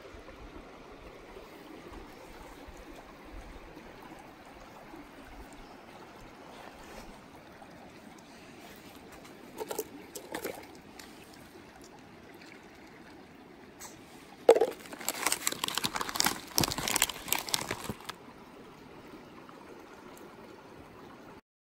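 Steady trickle of running water, like a small stream. A couple of short crackles come about ten seconds in, and a louder stretch of crackling and clattering from about fourteen to eighteen seconds.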